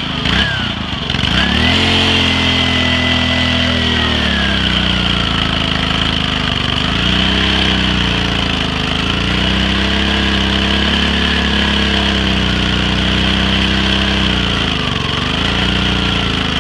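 Honda single-cylinder pressure-washer engine running hard with beer in its crankcase instead of oil and its throttle held open. Its speed sags and picks back up several times.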